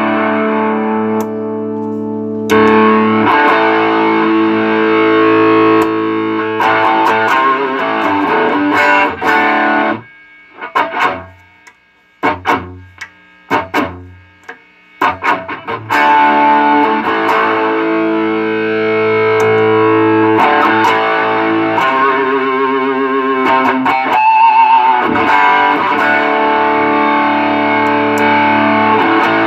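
Electric guitar played through a JHS Double Barrel dual overdrive pedal: overdriven chords strummed and left ringing, dropping to a few quiet single notes about ten seconds in, then full chords again from about fifteen seconds. The pedal has just had its DC jack replaced and a full service for noise.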